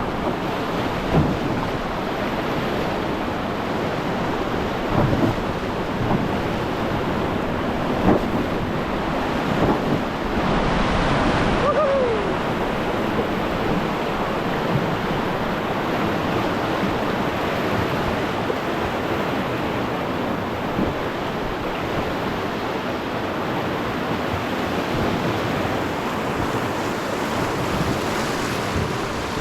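Steady rush of river water at high flow, with wind buffeting the microphone, and a few brief knocks.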